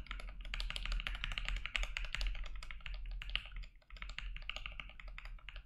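Fast two-handed typing on a mechanical keyboard with a 3D-printed PLA case mounted on TPU gaskets and partly fitted with linear switches: a rapid, even run of key clacks, with a short lull a little past halfway.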